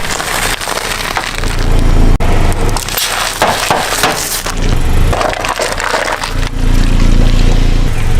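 Objects being crushed under a car's tyres: a run of cracking, crunching and breaking. The car's engine runs low underneath in stretches, near the start and again near the end.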